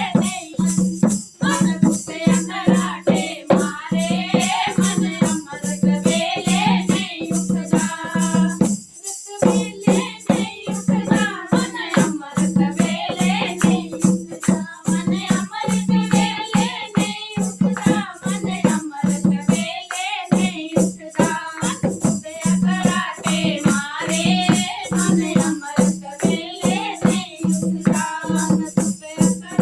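Devotional kirtan music: singing over a steady beat of hand percussion with jingling rattles, and a held low note underneath.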